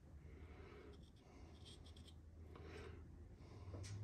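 Faint scratching of a paint pen tip as it traces around a gasket's port opening on an intake manifold flange, marking the outline for match porting.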